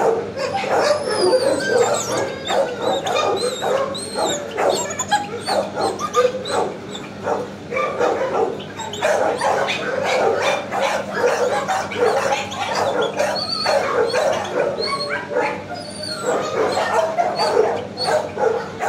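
Many shelter dogs barking at once in overlapping, unbroken chorus, mixed with high yips and whines.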